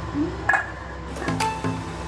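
Background music, with a stainless steel pot lid set onto a stainless steel pot with a single ringing clink about half a second in.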